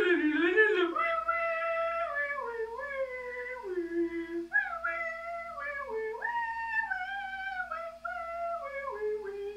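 A woman singing wordless held notes that step up and down in pitch, starting with a quick warbling wobble.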